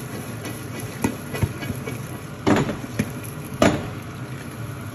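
Popcorn being shaken and stirred in a lidded frypan on high heat: a steady hiss from the hot pan, with about five sharp knocks and pops from the kernels, pan and glass lid, the two loudest past the middle.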